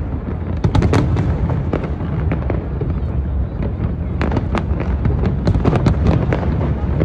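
Fireworks display going off in quick succession: many sharp crackling bangs over a continuous low rumble, thickest about a second in and again from about four seconds on.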